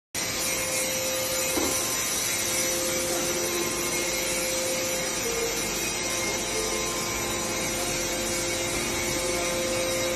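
Industrial extruder processing a sand-and-plastic mix for roof tiles, running steadily: a continuous mechanical whir with a constant hum, and a second, lower hum joining a couple of seconds in.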